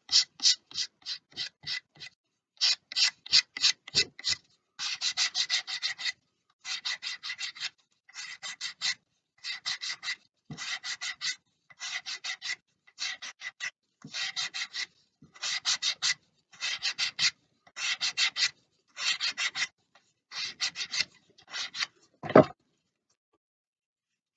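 Abrasive paper on a sanding block rubbed in rapid short strokes over the edge of a laminated balsa wheel, shaping the tyre's rounded profile. The strokes come in bursts of about a second, with brief pauses between them. Near the end there is a single knock.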